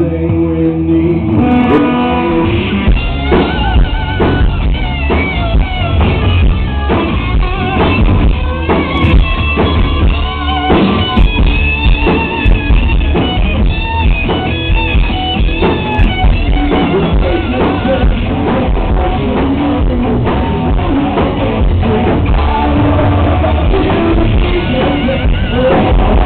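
Live rock band playing loudly: electric guitar and drum kit, with a male singer's vocals.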